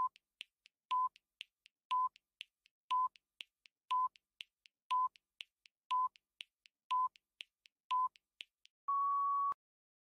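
Countdown timer sound effect: a short electronic beep once a second, with quieter ticks between the beeps. It ends in a longer, slightly higher beep as the count reaches zero.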